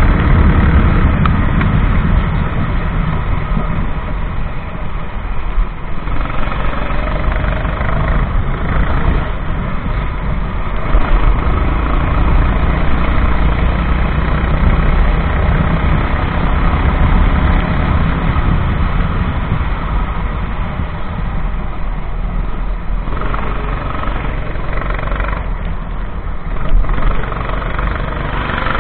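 Go-kart engine running under a heavy rush of noise, its pitch rising and falling as the kart speeds up and slows through corners.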